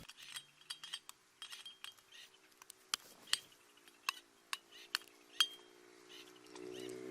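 A series of sharp clicks and light taps, the loudest half a dozen between about three and five and a half seconds in, over a faint steady tone.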